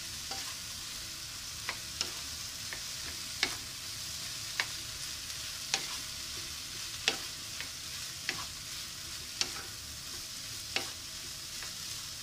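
Rice stir-frying in a nonstick frying pan: a steady sizzle, with a wooden spatula tapping and scraping against the pan about once a second as it turns the rice.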